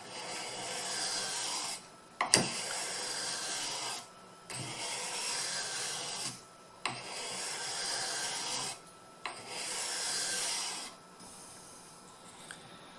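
Scandi-ground carving knife blade scraping along a whetstone in about five long strokes, each one and a half to two seconds, with short pauses between them. The bevel is being sharpened flat against the stone. There is a sharp click about two seconds in, and the last stretch is quieter.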